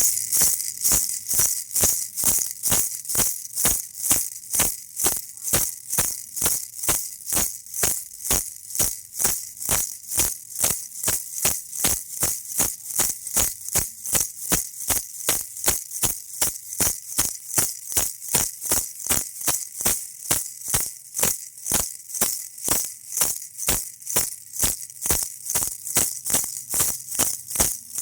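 Baby rattle shaken steadily and evenly, a crisp high rattle of beads at about two to three shakes a second.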